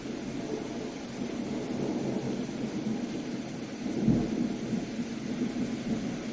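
Steady rain with a low rumble of thunder underneath, swelling briefly about four seconds in.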